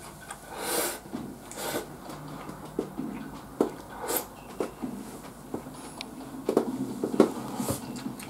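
A man eating close to the microphone, shovelling rice from a bowl with chopsticks and chewing, with scattered sharp clicks and mouth smacks. The loudest comes near the end.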